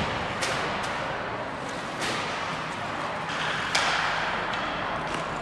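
Three sharp knocks in an ice rink, with the last one the loudest, over a steady hiss of rink noise and faint voices.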